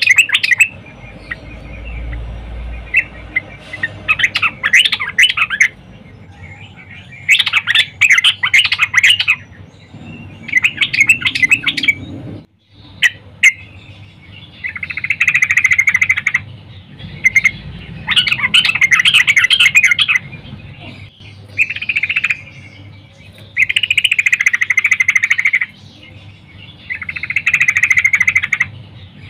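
Yellow-vented bulbul (trucukan) singing in loud bursts of rapid, bubbly chirps, each lasting one to two seconds and repeated every few seconds, about nine in all. The song is presented as a female's call to draw a male into singing.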